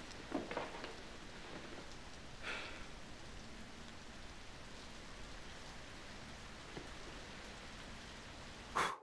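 Steady hiss of rain falling. About half a second in, a brief scrape of a chair as a man sits down at the table, and near the end a short, loud puff of breath as he blows out the candles.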